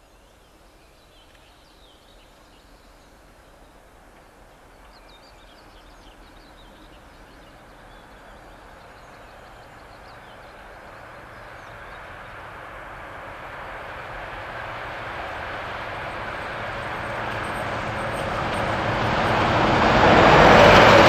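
PKP class SP32 diesel locomotive hauling a passenger train as it approaches. Its engine and rolling noise grow steadily louder over about twenty seconds and peak as it passes close by near the end.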